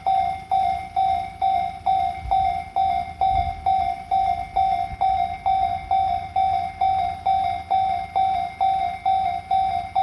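Japanese railway level-crossing warning bell ringing steadily, about two electronic clangs a second. It signals that the crossing is closed for an approaching train.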